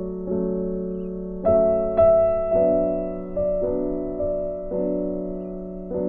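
Soft background piano music: slow, held chords with new notes struck about once a second.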